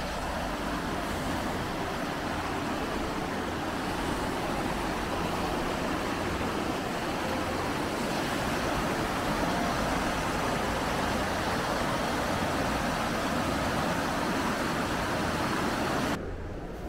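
Rushing water churning white out of a mill race below a sluice, a steady full rushing noise that grows a little louder, then cuts off sharply just before the end.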